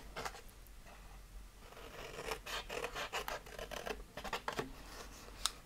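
Scissors snipping through cardstock, faint, in a few short runs of cuts, along with the rustle of the card being turned in the hands, and a sharp click near the end.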